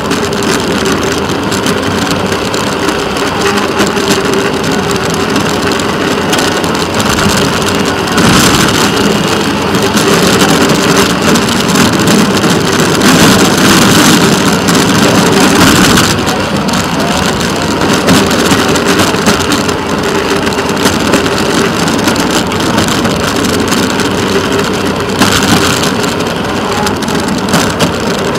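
Rail speeder (track motorcar) running along the track: a steady engine hum over the rushing rattle of its wheels on the rails, louder for a few seconds in the middle.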